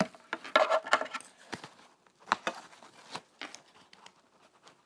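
Plastic buckles clicking shut and nylon straps and fabric rustling as a strapped backpack is handled, with several separate sharp clicks.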